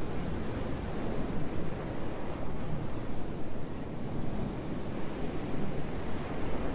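Sea surf washing against a rocky shore, a steady rushing noise, with wind buffeting the microphone.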